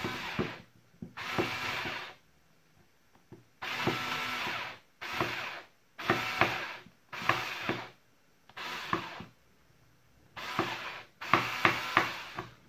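TECCPO cordless electric screwdriver running in about nine short bursts of half a second to a second each, backing screws out of a plastic drill housing.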